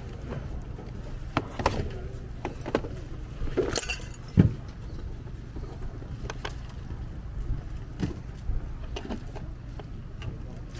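Outdoor ambience with a steady low rumble, scattered clicks and clinks, and one louder thump about four seconds in.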